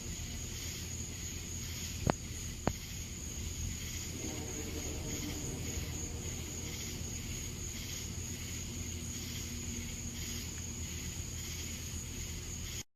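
Insects chirring in one steady high tone over a low rumble, with two sharp clicks about two seconds in. The sound cuts off abruptly just before the end.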